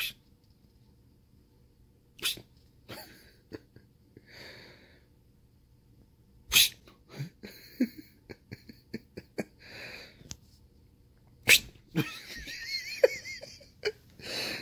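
A person shushing at a cat, several short hissed "shh" sounds, with a few loud, sharp knocks among them.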